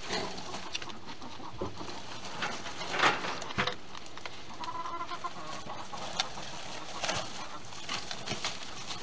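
Farm fowl clucking, with a drawn-out call about five seconds in, over scattered small clicks and rustling.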